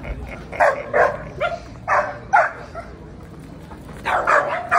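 Belgian Malinois police dog barking during a handler-defence exercise: a string of short, loud barks in the first half and a quick burst of several more near the end.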